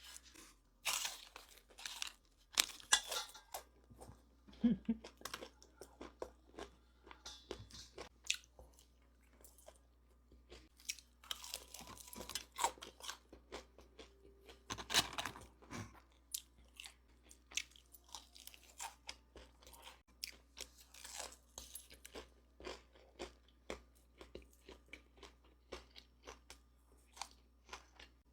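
Close-miked biting and chewing of crunchy Popeyes fried food, with sharp crunches at irregular intervals throughout, loudest in the first few seconds and about fifteen seconds in.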